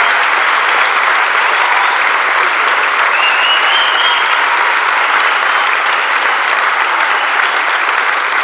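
Theatre audience applauding steadily and at length at the end of a concert.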